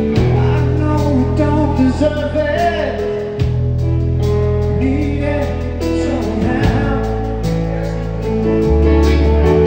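Live rock band playing a slow song: an electric guitar lead on a Gibson Les Paul with bending, wavering notes over sustained bass notes and held chords.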